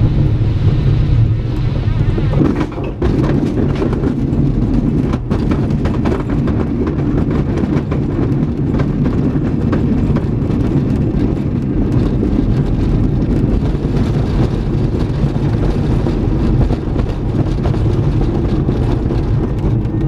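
Glider's landing roll on a grass airfield, heard from inside the cockpit: the main wheel rumbles over the bumpy turf and the airframe rattles with a steady stream of small knocks.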